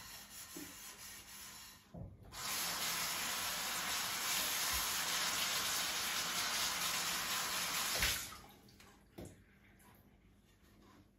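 Water running from a tap into a kitchen sink. It is fainter at first; a knock comes about two seconds in and the full stream runs for about six seconds. The stream stops abruptly, followed by a couple of light knocks.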